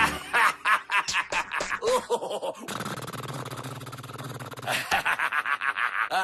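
Cartoon character vocal effects: grunts and snickering laughter. A steady low hum runs through the middle.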